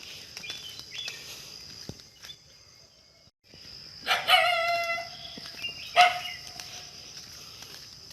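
Rooster crowing: one loud call about four seconds in that lasts about a second, then a shorter call about two seconds later.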